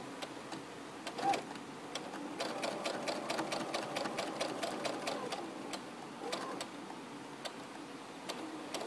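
Sewing machine stitching a rolled hem with a rolled-hem presser foot, running steadily: a really quiet hum with a fast, even run of needle ticks.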